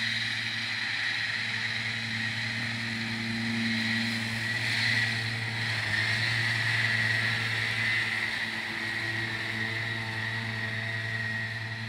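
McCormick MTX 135 tractor running under load while mowing grass with a disc mower: a steady engine hum with a steady high whine on top, loudest about halfway through as it passes close, then easing off.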